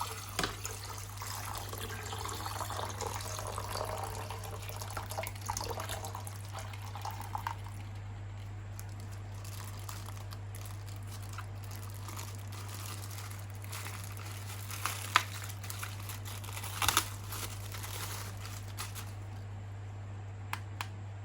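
Water sloshing and plastic rustling as plastic toy figures are handled and washed, over a steady low electrical hum. After about eight seconds the handling thins out into scattered sharp clicks and taps.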